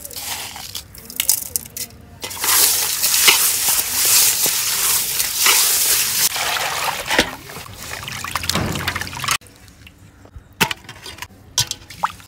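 Water poured into an aluminium pot of salted ribbon fish pieces, running steadily for about seven seconds and stopping abruptly. Before it come light scraping clicks of hands working the fish; after it come small splashes and drips as a hand swishes the fish in the water to wash it.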